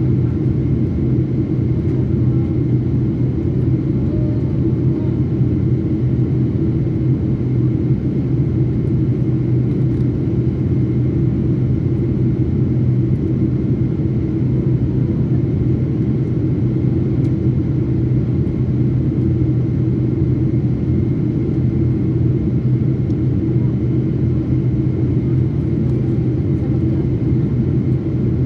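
Jet airliner in flight heard from inside the cabin: the steady drone of the turbofan engines and rushing airflow, with a strong low hum.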